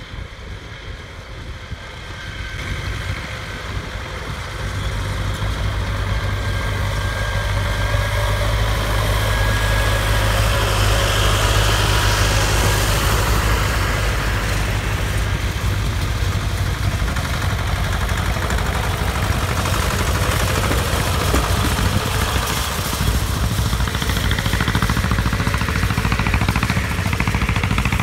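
Tractor diesel engine running steadily, growing louder over the first several seconds as a small tractor pulling a wheel hay rake drives toward the microphone, then staying loud.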